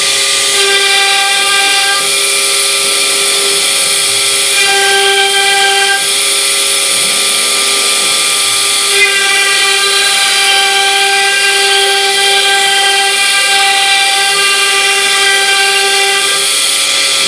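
Spindle of a homemade wooden-framed CNC router running at speed while a cone-shaped bit carves a groove into white-faced board, over the steady hiss of a vacuum hose sucking up the chips. A steady high whine comes and goes in stretches of a few seconds.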